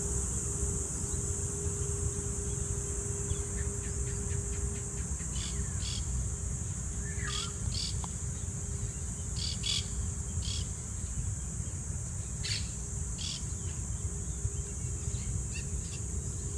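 Steady high-pitched drone of insects, with short bird chirps scattered through from about five seconds in, over a low steady rumble.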